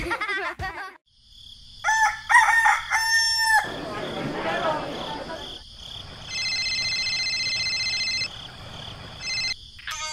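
A rooster crowing, one several-part cock-a-doodle-doo about two seconds in. A few seconds later a steady electronic ringing tone sounds for about two seconds, with a short repeat near the end.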